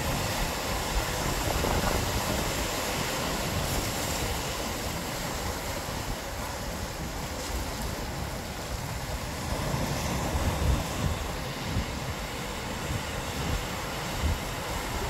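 Ocean surf breaking over a rocky reef and washing into tide pools, a steady rushing wash, with wind buffeting the microphone in low, gusty rumbles.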